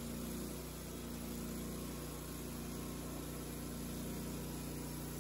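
Wood-Mizer band sawmill's engine running steadily at an even pitch.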